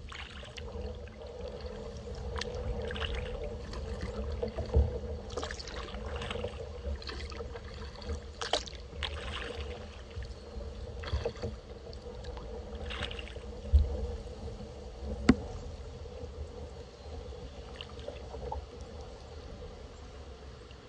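Kayak paddle strokes: the blades dip and splash into the water, with drips and trickles, irregularly about once a second over a low steady rumble. Two sharp knocks stand out about two-thirds of the way through.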